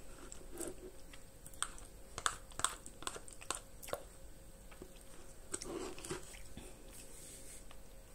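Close-miked eating of yogurt from a spoon: a run of wet mouth clicks and lip smacks, with the metal spoon scraping and tapping in a plastic yogurt tub.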